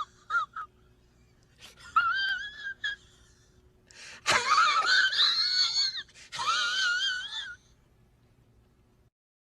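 A string of high-pitched sound-effect clips: wavering squeals in four or five separate bursts, the loudest and noisiest about four to six seconds in. They stop about nine seconds in.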